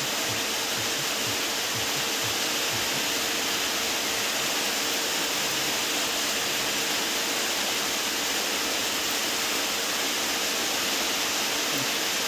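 Steady rushing hiss with a faint steady hum underneath, unchanging throughout, with no distinct clicks or handling sounds standing out.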